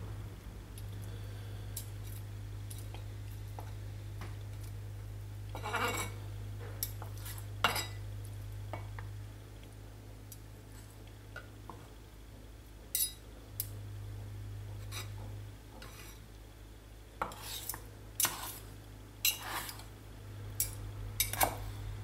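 Kitchen knife and fork tapping, clicking and scraping on a plastic cutting board while cooked octopus is cut into cubes. The taps come irregularly and bunch together in a few spells, over a steady low hum.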